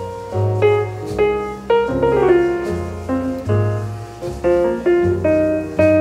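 Background music: a piano playing a jazz tune, chords and melody notes struck over a low bass line.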